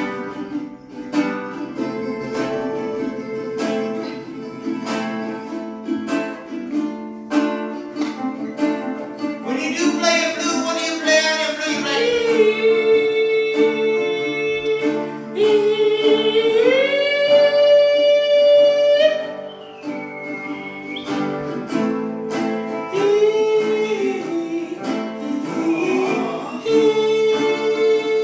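Live acoustic music from a resonator guitar and a ukulele, strummed and picked together. From about ten seconds in, a long held melody line glides and bends between notes for about ten seconds.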